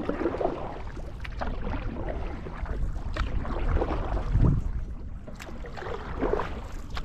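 Canoe paddle strokes sloshing in the water beside the hull, with wind rumbling on the microphone and a low thump about four and a half seconds in.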